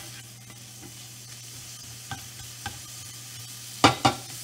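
Sliced onions and cumin seeds sizzling in oil in a nonstick frying pan while being stirred, with a few light clicks of the utensil against the pan. Near the end come two sharp knocks, the loudest sounds.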